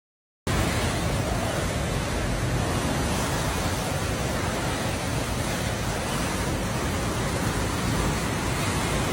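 Wind sound effect: a steady, even blowing of wind with a deep low rumble, starting abruptly about half a second in after a brief silence.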